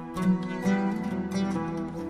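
Slow instrumental background music: plucked-string notes over held tones, a new note roughly every half second.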